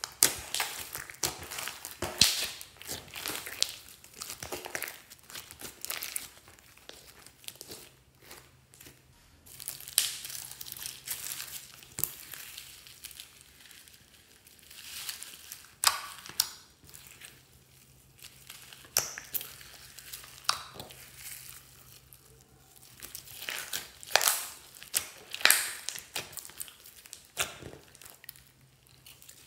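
Hands squishing and pressing glossy slime mixed with foam beads, making irregular pops and crackles, with a few quieter pauses.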